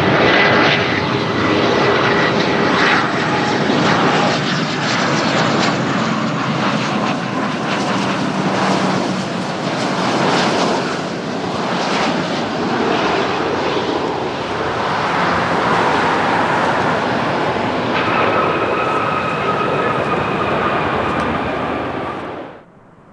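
Twin rear-mounted jet engines of a Gulfstream business jet on final approach, touchdown and landing roll: a steady rush of jet noise with a high whine. A second, higher pair of whines comes in near the end, and the sound cuts off suddenly just before the end.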